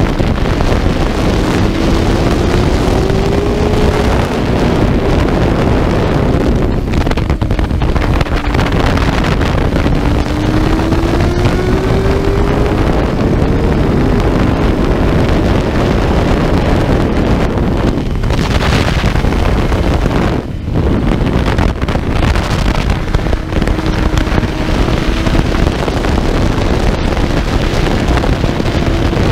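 Heavy wind buffeting on a bike-mounted action camera's microphone over a KTM 690 SMC's single-cylinder engine at racing speed. The engine note climbs in two long pulls in the first half and falls back between them.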